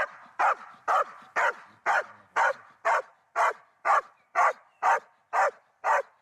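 Belgian Malinois police dog barking steadily at a decoy, about two barks a second, in a trained bark-and-hold ('Verbellen'): the dog holds the suspect in place by barking without biting.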